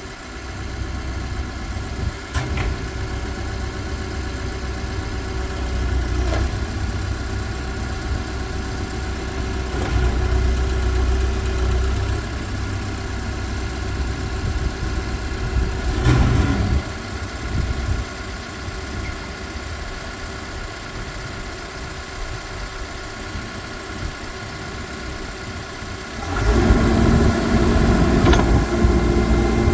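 Case 580N backhoe's diesel engine running steadily, with a sharp clack about halfway through. Near the end the engine gets clearly louder and stays up, as under load or raised throttle.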